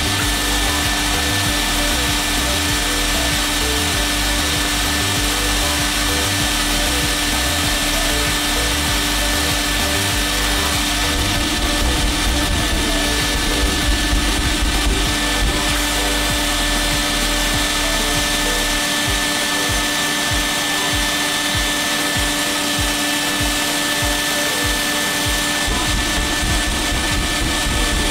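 Abrasive blast cabinet running: a loud, steady hiss of blast media from the nozzle hitting a metal part inside the cabinet. A low rumble underneath stops about two-thirds of the way through.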